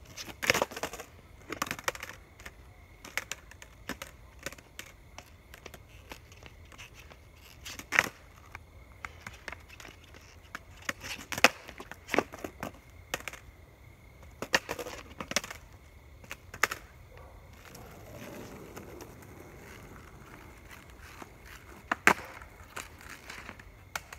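Skateboard on an asphalt path: a string of sharp pops and clacks as the board's tail and deck strike the ground during flatground trick attempts, with a stretch of wheels rolling on the asphalt about three-quarters of the way in and one more loud clack near the end.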